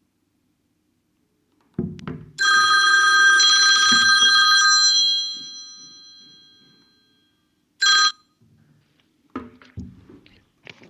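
Incoming phone call ringing through an EJEAS X10 intercom's helmet speaker: a loud ring of several steady high tones lasting a couple of seconds and fading out, then a second short ring near 8 seconds. Knocks of the helmet being handled come just before the first ring.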